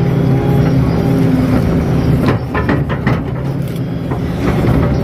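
KATO crawler excavator's diesel engine running steadily under working load, heard from inside the cab, as the bucket drags through soft, waterlogged mud. A quick cluster of short knocks and clicks comes about two to three seconds in.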